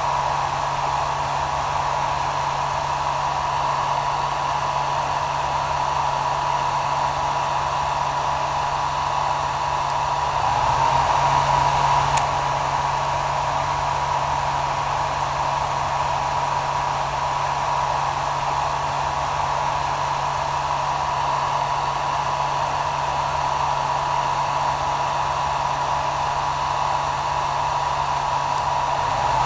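Hair dryer running steadily: a constant rush of air with a whine and a low motor hum, swelling slightly for a second or two about eleven seconds in.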